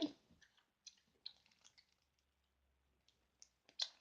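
Near silence broken by a few faint, short, irregular clicks.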